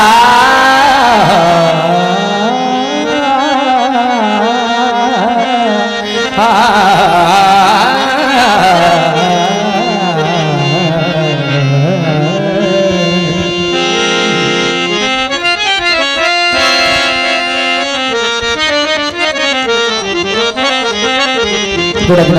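Live Punjabi folk singing: a man's long, wavering held notes with instrumental accompaniment, giving way just past the midpoint to an instrumental passage of quick stepped notes.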